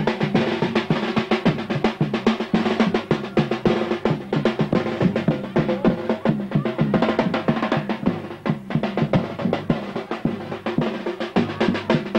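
Several drummers beating a fast, continuous rhythm on hand-carried drums, many strikes a second with no break.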